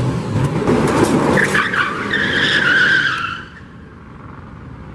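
A car's engine revving hard as its tyres spin and squeal on gravel and pavement. The squeal starts about a second and a half in and stops at about three and a half seconds, when the engine noise falls away quickly.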